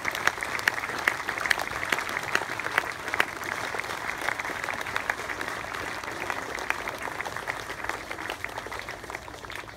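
A crowd applauding: many hands clapping in a dense patter that slowly thins and dies away near the end.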